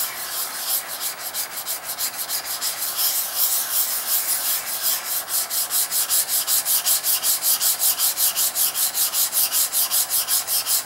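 A steel block plane blade, a Hawk replacement iron, is rubbed back and forth flat on a wet extra-coarse DMT diamond stone, making a gritty scraping of several quick, even strokes a second. The strokes grow more regular a few seconds in. The back of the blade is being flattened, and its original machine marks are being ground away.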